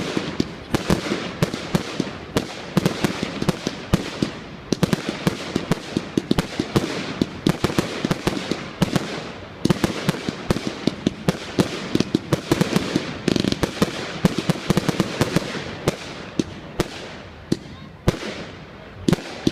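Fireworks going off in a continuous barrage of sharp bangs and crackles, several a second, with a louder cluster about halfway through.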